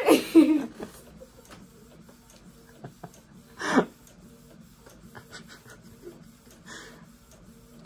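A young woman crying into her hands, with a loud cry at the start and a falling sob about four seconds in, then quieter sniffling sobs. A faint steady hum runs underneath.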